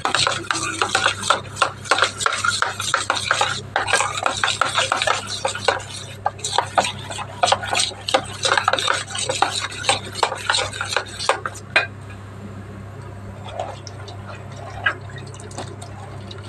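Metal spoon stirring thick flour batter in a stainless steel bowl, with rapid scraping and clinks against the bowl's sides. The stirring stops about twelve seconds in, leaving a steady low hum.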